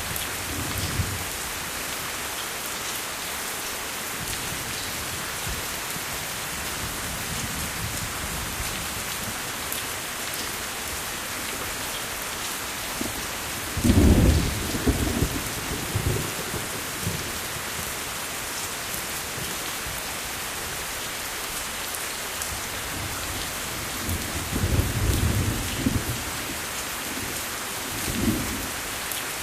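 Steady rain hissing, with low rolls of thunder. The loudest rumble comes about halfway through, and more rumbling follows near the end.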